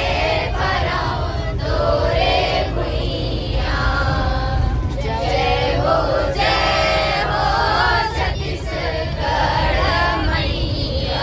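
A group of teenagers singing together in chorus inside a bus, the song in phrases with short breaks. A steady low rumble of the bus engine and road runs underneath.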